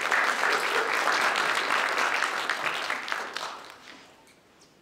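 Audience applauding, a dense patter of many hands clapping that dies away after about three and a half seconds.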